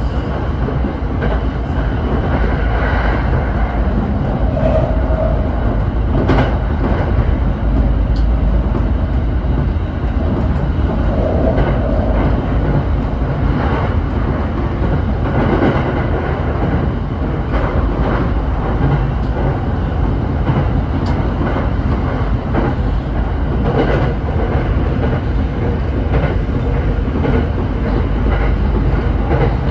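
Tokyo Waterfront Area Rapid Railway 70-000 series electric train running at speed, heard from the driver's cab: a steady rumble of wheels on rail, with a click now and then.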